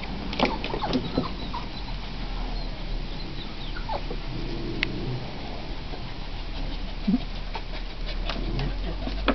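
Poodle puppies giving short whimpers and yips now and then, with scattered clicks and splashes from their paws in a shallow plastic paddling pool.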